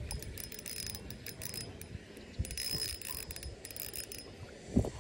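A small Shimano 1000-size spinning reel being cranked to bring in a hooked fish, its gears and workings clicking in spells. A single dull thump near the end.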